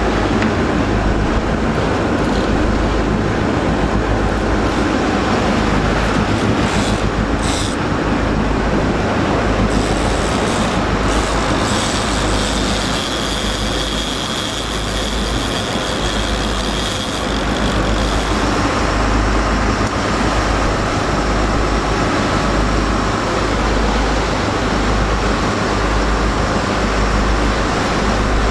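Sport-fishing boat underway: a steady engine drone mixed with the rush of water from the wake.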